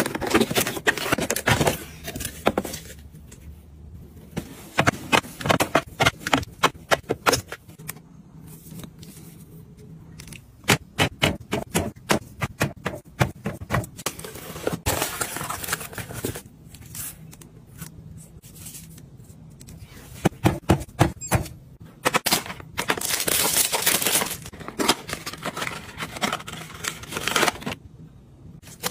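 Close handling sounds of plastic bottles being unpacked from a cardboard case and set onto a plastic fridge shelf, in quick runs of small clicks and knocks. Near the end comes a longer rustle of plastic packaging.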